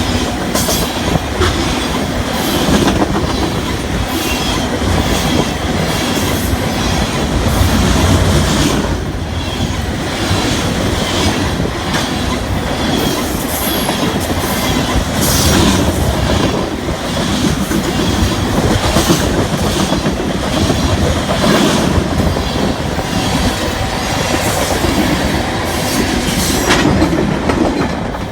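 Loaded crude oil tank cars of a unit freight train rolling by, steel wheels clicking irregularly over rail joints above a steady rumble, with a faint high wheel squeal.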